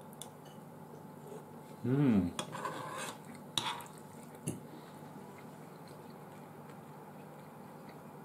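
A short hummed sound with a rise and fall in pitch about two seconds in, then a few sharp clicks of cutlery against a plate during a meal.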